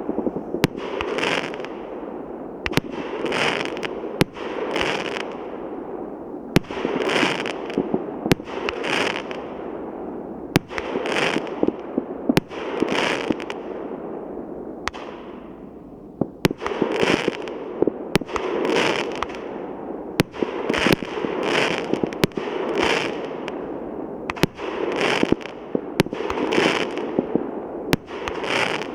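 Multi-caliber 216-shot fireworks cake (Feeriya FEE7285) firing in a continuous volley: sharp bangs every second or so, each followed by a burst of crackling.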